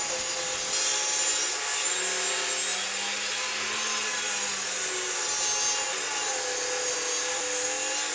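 Benchtop table saw ripping a dry pine board into thin strips, the blade running steadily with a sawing hiss. Its tone sags slightly twice as the blade takes the load of the cut.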